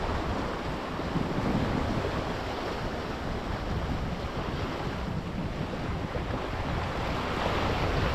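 Sea waves washing against a rocky shore, a steady surf noise, with wind rumbling on the microphone.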